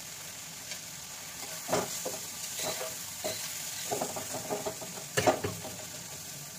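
Spatula stirring and scraping a spiced onion masala in a frying pan, with a steady sizzle underneath. The scrapes and knocks come irregularly, the loudest a little past five seconds in.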